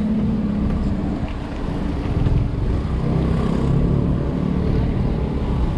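Steady traffic noise heard from a moving bicycle: the engines of a queue of cars run with a low hum, under wind rumble on the microphone.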